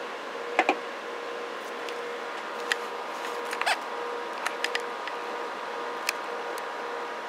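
Steady hiss with a faint steady tone underneath, the audio of a CB receiver under test on the bench, broken by scattered light clicks and taps from handling the test gear: a double click under a second in, a cluster around the middle and one more near the end.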